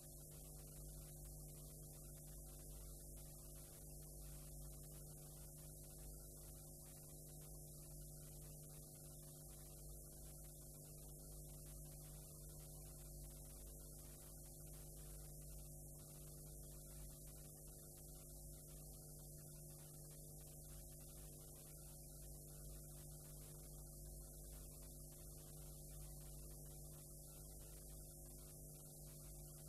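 Near silence: a faint steady electrical hum with hiss from the playback of a blank stretch of videotape, with a faint tone pulsing about once a second.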